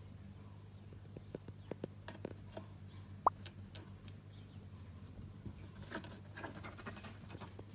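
Light taps, clicks and scratches of a cat's paws and claws on a window sill and sliding-window frame, scattered through, with one sharper tick about three seconds in and a busier patch near the end, over a steady low hum.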